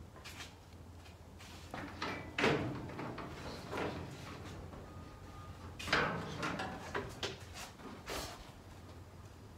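A shovel digging into garden soil in several scraping strokes while a planting hole is dug.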